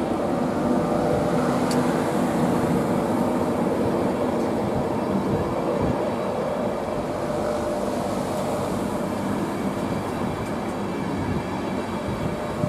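Mark 4 passenger coaches of an electric InterCity 225 train rolling past, a steady rumble of wheels on rail with a faint hum, easing slightly as the train draws away. A single light click about two seconds in.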